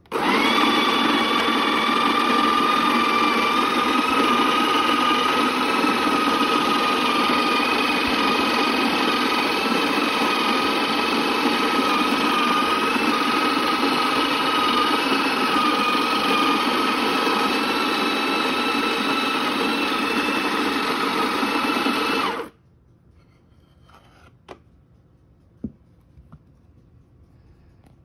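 A Breville electric burr grinder starts and grinds a two-shot espresso dose: a steady motor whine for about 22 seconds that cuts off suddenly when the dose is done. A few light clicks follow near the end.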